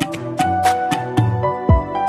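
Background music with a steady beat of sharp strikes over sustained notes, and a deep falling bass hit near the end.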